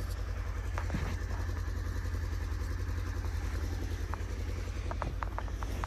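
A four-wheel-drive vehicle's engine idling with a steady low rumble, with a few light clicks near the end.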